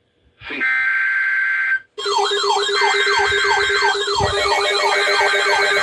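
A steady electronic tone of about a second, then several electronic sirens sounding together: a falling sweep repeating about twice a second over a fast higher warble and a steady lower tone.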